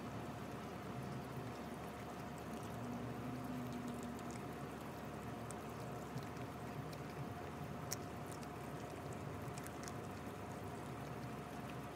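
Puppy chewing raw chicken: scattered wet smacking and a few sharp crunches, the loudest about eight seconds in, over a steady background hiss and faint hum.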